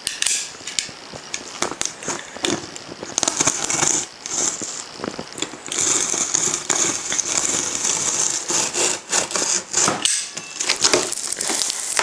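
Utility knife slicing through packing tape and cardboard on a large box, with scraping, crackling tape and many sharp clicks as the cardboard is cut and handled.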